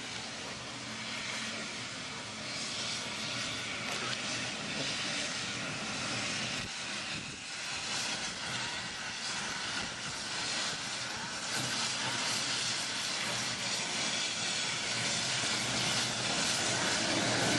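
Steam locomotive rolling slowly past, a steady rumble and hiss that grows louder as it draws near.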